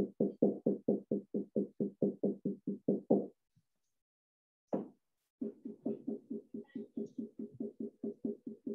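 Whiteboard marker rubbed across a whiteboard in rapid hatching strokes, about six or seven short strokes a second. The strokes stop a little after three seconds in, a single stroke sounds near the middle, and the quick hatching resumes about two seconds before the end.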